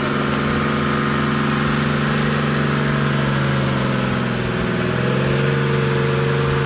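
Isuzu Trooper's engine running hard under load as the 4x4 tries to pull out of deep mud, a steady drone that rises a little in pitch about five seconds in while the wheels spin.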